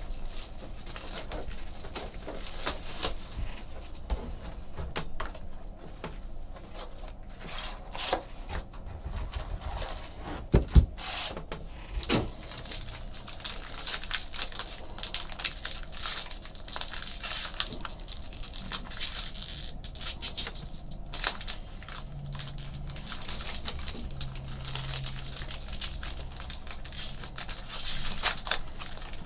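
A 2012-13 Panini Limited hockey card pack being unwrapped and handled: the plastic wrapper crinkling and tearing, and the cards rustling, in irregular short sounds, with a few sharper clicks about ten to twelve seconds in.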